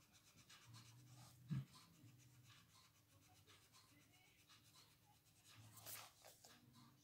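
Paper blending stump rubbed in quick, faint scratchy strokes over coloured-pencil shading on paper, blending and softening the colour. A single low thump about a second and a half in.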